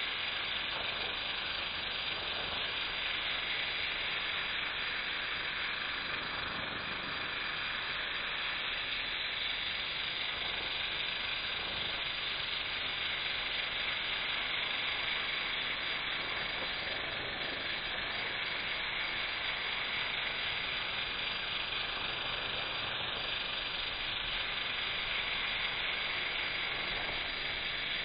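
Pressure washer lance spraying a high-pressure jet of water onto wet paving slabs: a steady spraying hiss.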